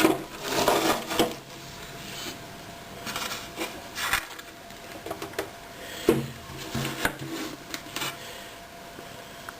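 A Bakelite radio cabinet being handled and turned over on a work surface: scattered knocks and clicks with soft scraping and rubbing, and a firmer knock about six seconds in.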